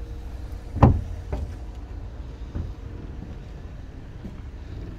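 Handling knocks on a fibreglass boat's hatches and cabin door: one sharp knock about a second in, then a few lighter knocks, over a steady low rumble.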